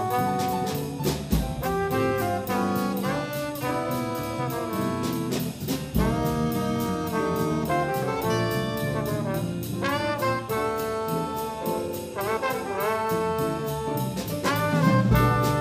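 A small jazz combo playing live: trombone and alto saxophone play over piano, guitar, bass and a drum kit with ride cymbal, and a few heavy drum hits land along the way.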